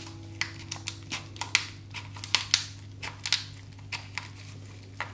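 Kitchen scissors cutting through a crab leg's shell: an irregular run of sharp crunching cracks, some louder than others.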